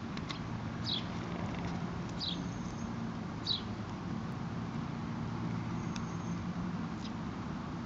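Tortoise biting and chewing a dandelion flower, heard as a few faint clicks. Behind it is a steady low motor-like hum, and a bird gives a short falling chirp about once a second for the first few seconds.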